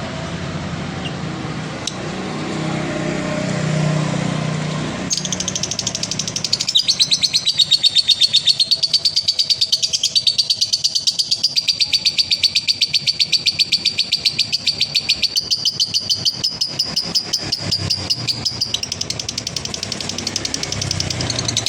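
A low, noisy rumble for about the first five seconds, then a male lovebird's long chattering trill (ngekek), a rapid run of high, evenly spaced notes that carries on for about sixteen seconds.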